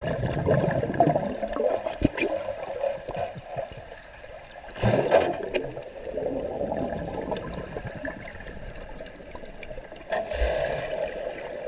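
Underwater gurgling and bubbling in a swimming pool, heard from a camera below the surface: exhaled air bubbles and a swimmer moving through the water. Louder rushes of bubbles come near the start, about five seconds in and again near the end, with a single sharp knock about two seconds in.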